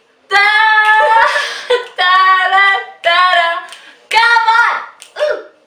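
Girls singing a short tune unaccompanied in about five held phrases, with finger snaps keeping time.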